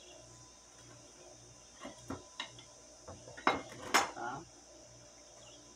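Small metal tin of synthetic enamel paint being opened: a few light clicks, then two sharp metallic clinks about three and a half and four seconds in, the second the loudest, as the lid comes off.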